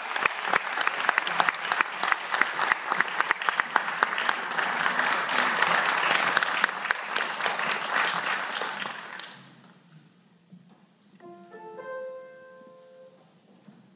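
Audience applauding, dying away about nine seconds in. Then a piano sounds a few notes one after another, held together as a chord for a couple of seconds.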